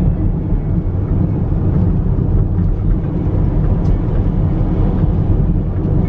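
Car driving along a road: a steady low rumble of engine and tyre noise.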